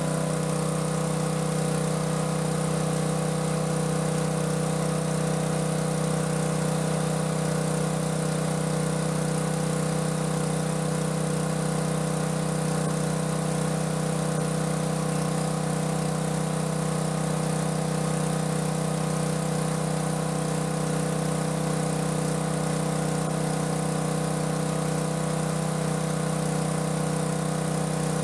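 Portable gasoline-engine water pump running at a steady speed while it pumps a swamped boat out, its discharge jet gushing over the side into the water.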